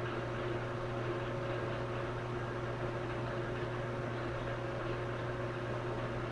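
Metal lathe running, a steady hum with a low tone and a couple of fainter higher tones from its motor and drive.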